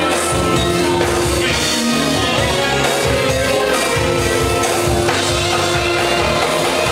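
Live band playing a song with electric guitars and a drum kit, with a steady beat.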